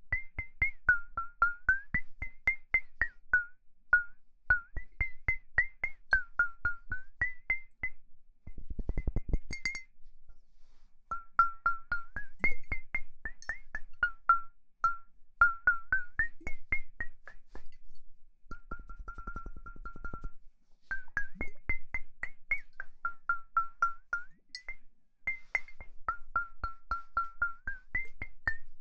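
Rapid ASMR clicking taps, each with a ringing pitch that slides back and forth between a lower and a higher note. Twice there is a brief flurry of much faster, denser clicks.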